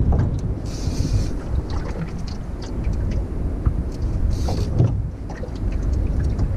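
Wind buffeting the microphone in open air on a boat, a steady low rumble, with two short hissing bursts, one about a second in and one about two-thirds of the way through.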